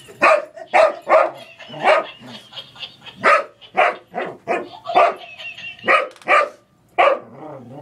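English Springer Spaniel barking in play: about a dozen short, loud barks at irregular intervals, with a brief pause shortly before the last one.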